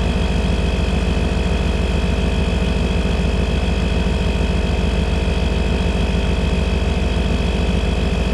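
Small electric air compressor in a JFEGWO 3000A jump starter running steadily with a fast, even pulse as it inflates a pickup's rear tire, pressure building at about 26 to 27 psi toward its 32 psi cut-off.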